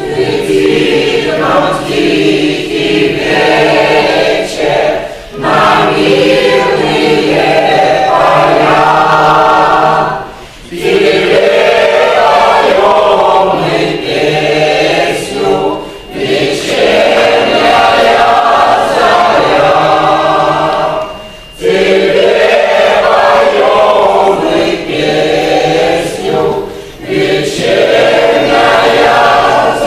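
Mixed choir singing unaccompanied in sustained chords, phrase by phrase, with short pauses between phrases about every five seconds. The singing starts right at the beginning.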